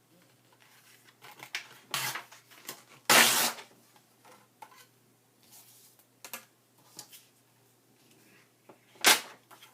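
Paper and crafting tools being handled on a work table: scattered taps and rustles, with a louder half-second rustle about three seconds in and a sharp knock near the end.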